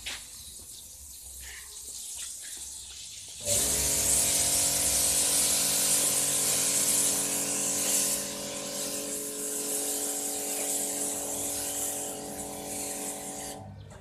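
A self-service car wash machine's foam gun spraying foam onto a van: a steady hiss of spray over the even hum of the machine's pump. It starts about three and a half seconds in and cuts off sharply near the end.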